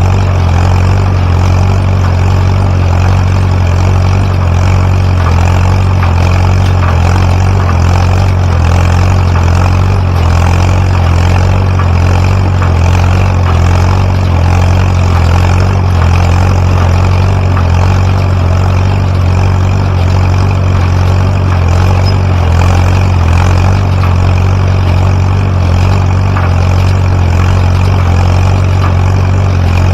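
Tractor engine running steadily at a constant speed while working a Massey Ferguson No. 12 hay baler.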